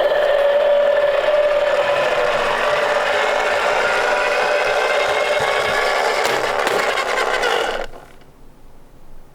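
Tomica die-cast toy cars rolling down a wooden slope: a steady whirring rattle of small wheels on wood that stops abruptly about eight seconds in.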